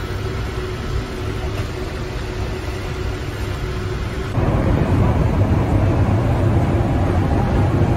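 Steady hum of a passenger ship's engines and machinery heard inside a sleeping deck, with a faint steady tone. About four seconds in it gives way to a louder, low rumble of the ship out on the open deck.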